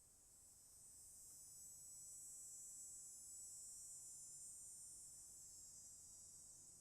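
Cicadas buzzing: a faint, high-pitched steady drone that swells over the first couple of seconds and eases slightly near the end.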